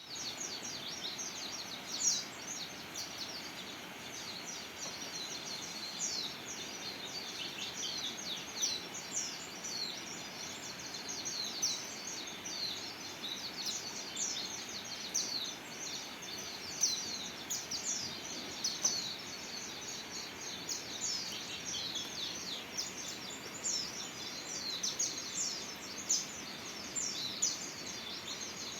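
Pleci (white-eye, Zosterops) birds twittering: a continuous stream of short, high, quickly falling chirps over a steady background hiss.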